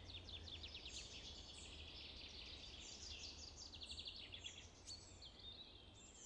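Faint outdoor ambience of small birds singing, with repeated chirps and quick trills, over a low steady rumble.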